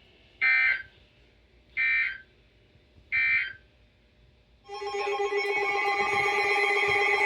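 Emergency Alert System header: three short electronic data bursts about a second and a half apart, then a steady alert tone starts a little before five seconds in and holds. Together they open a severe thunderstorm alert.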